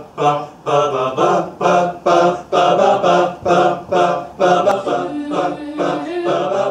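Mixed school choir singing in short, rhythmic detached syllables, about two to three a second, moving into longer held notes near the end.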